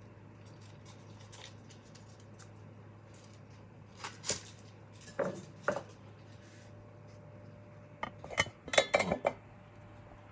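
Light kitchen clatter of utensils and dishes handled on a countertop: a few separate knocks and clinks partway through, then a quick, louder cluster of clatter near the end, over a steady low hum.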